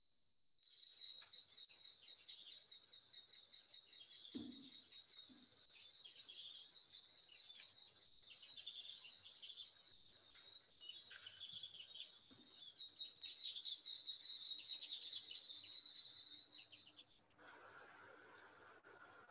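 Faint forest ambience carried by a high, rapidly pulsing chirping of insects, about five chirps a second, with a soft thump about four seconds in. Near the end the chirping stops and gives way to a steadier hiss with a faint hum.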